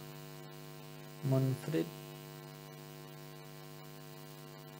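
Steady electrical hum with a stack of even overtones, unchanging throughout, with one short spoken word about a second and a half in.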